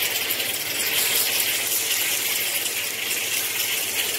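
Browned onions and chopped tomatoes frying in hot oil with a little water in a large pot, a steady crackling sizzle.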